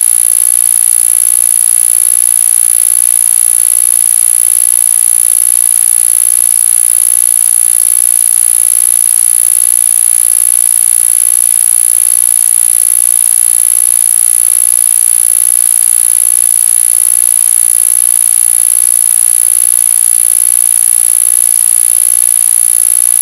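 Control signal for an iEars TENS electronic ear-acupuncture stimulator: a loud, steady, very high-pitched electronic tone with a fine, rapid pulsing, which drives the device when played at full volume from a phone.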